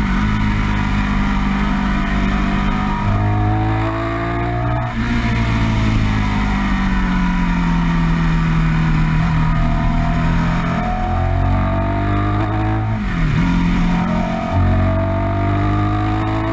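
Ducati 916 superbike's 90-degree V-twin pulling hard under acceleration, heard from the rider's seat. Its pitch climbs and then drops sharply at upshifts about five and thirteen seconds in, over a steady rush of wind.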